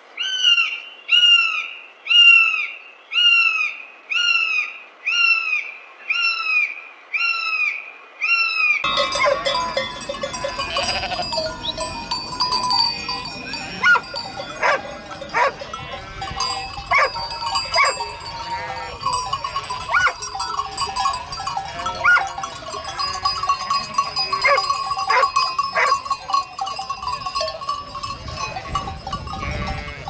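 A hawk calling a series of about nine down-slurred screams, roughly one a second. About nine seconds in, it gives way to a large flock of sheep, their bells clanking and ringing continuously, with sheep bleating among them.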